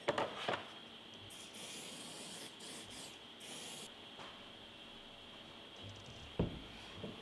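Aerosol spray can hissing in three short bursts, the longest about a second, then a single sharp knock on the bench a couple of seconds later.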